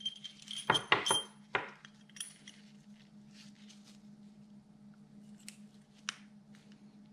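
Light metallic clicks and clinks of a steel rod bearing shell being handled and pressed into a connecting rod cap, most of them in the first two seconds, then a few faint ticks.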